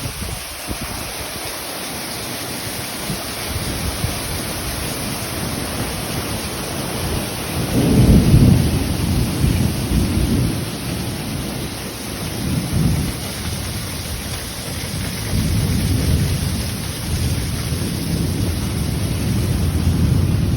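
Thunderstorm: steady rain with rolling thunder, a deep rumble swelling loudest about eight seconds in and rumbling again through the second half.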